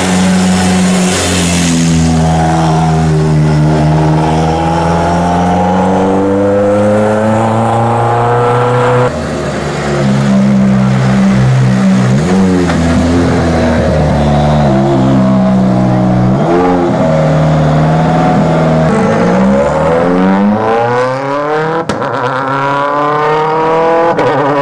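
Toyota Yaris WRC rally car's turbocharged 1.6-litre four-cylinder engine running loud throughout: at first a steady low note that slowly sags and climbs again. After a cut the note holds steady with two quick dips in pitch, and near the end it revs up hard, pitch climbing steeply as the car accelerates.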